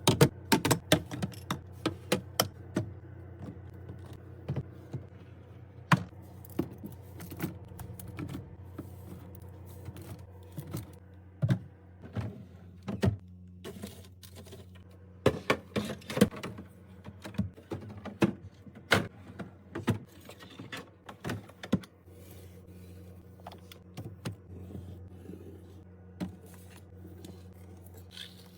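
Irregular clicks, taps and knocks of groceries and containers being set down and arranged in a refrigerator, over a steady low hum.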